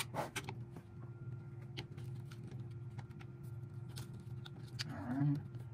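Scattered small metallic clicks and ticks of a hex driver turning out the handle bolt of a key cutting machine, over a low steady hum. A brief vocal hum rises near the end.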